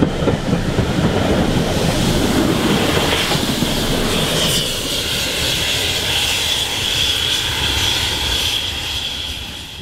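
A steam-hauled passenger train passing close by: coach wheels rumbling and clacking over the rail joints as the last coaches and a tail-end locomotive go past, then the sound fading as the train draws away. A high steady whine comes in about halfway through and lingers, dropping slightly in pitch.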